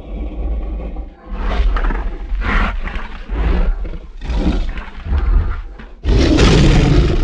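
Designed monster roar sound effect for a custom kaiju-style creature: a run of about five growling roars about a second apart, then a louder, longer roar near the end that cuts off suddenly.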